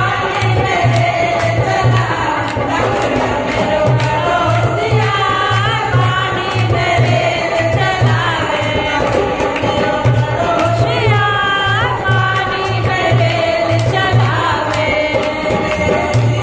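Women singing a languriya, a Hindu devotional folk song, into microphones, with a steady hand-drum beat and hand-clapping.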